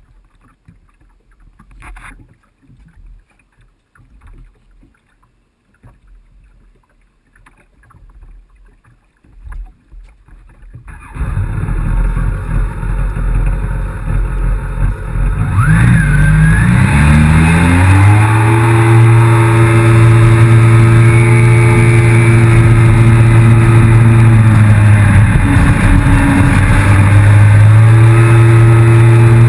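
Yamaha FX160 HO jet ski: faint knocks and handling noises, then its engine comes in loud about eleven seconds in, rises in pitch as it accelerates, and holds at high revs with a brief dip near the end.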